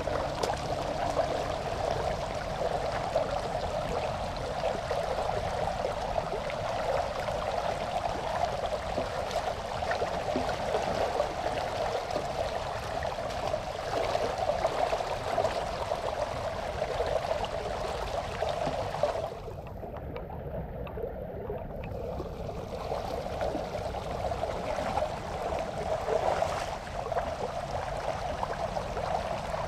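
Shallow floodwater rushing steadily and splashing as it flows around a wading man's legs and through a net trap. For a few seconds about two-thirds of the way through, the sound turns duller.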